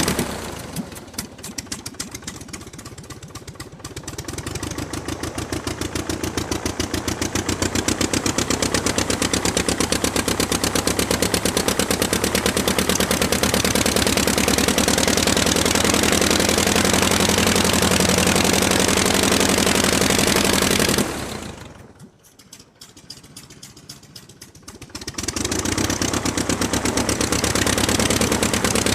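Piston aircraft engine running with a rapid, even firing beat. It is throttled back to a low idle right at the start and slowly opened up again, runs steadily at higher power, then is chopped back suddenly about 21 s in and brought back up about four seconds later.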